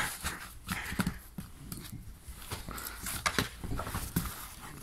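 Kitten scrambling on and in a cardboard box: irregular taps, scratches and knocks of paws and claws on the cardboard.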